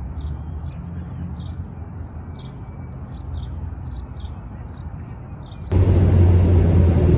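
Small birds chirping over a low traffic rumble; about six seconds in, the sound cuts abruptly to the loud, steady drone of a bus engine heard from inside the bus.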